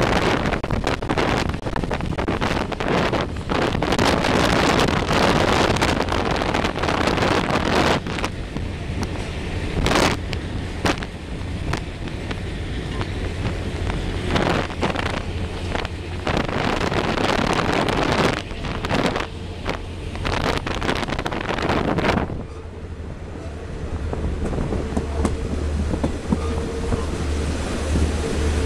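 Wind buffeting the microphone beside a moving Chepe passenger train, over the steady low rumble of the train running on the rails. About 22 seconds in the wind noise suddenly drops, leaving mostly the train's rumble.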